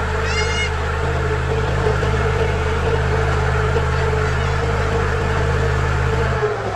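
Diesel engine of a JCB 3DX backhoe loader running steadily, with a steady whine above the engine note. The engine sound drops noticeably near the end. A brief high chirping call is heard about half a second in.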